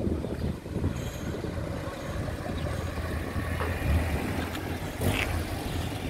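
Engine of a classic convertible sports car running at low speed as the car rolls slowly past, a steady low rumble.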